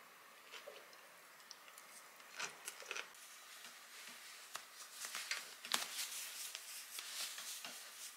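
Socks being pulled on by hand: soft, faint fabric rustling and brushing with small clicks and scuffs, thickest in the second half.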